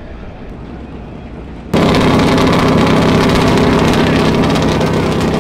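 Low outdoor rumble, then about two seconds in a sudden jump to a loud engine running steadily at an even pitch.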